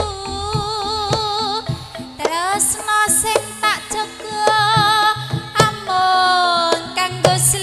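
Female Javanese tayub singer (sinden) singing with a wavering vibrato over a live gamelan ensemble, with sharp kendang drum strokes marking the rhythm, heard through a loud PA.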